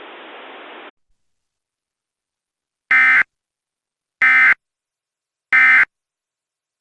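Emergency Alert System end-of-message signal: three short bursts of SAME digital data tones, about a second apart, marking the end of the alert. A faint hiss stops just under a second in, before the bursts.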